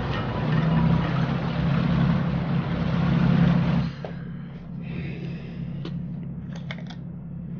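A loud, steady engine rumble with a low hum, cutting off abruptly about four seconds in. What follows is a much quieter room background with a few light clicks.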